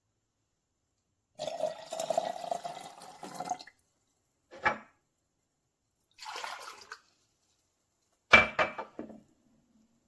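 Drip coffee maker brewing: bursts of gurgling and hissing as the hot water is pushed up through the machine, with a short click in the middle and a sharp clink near the end.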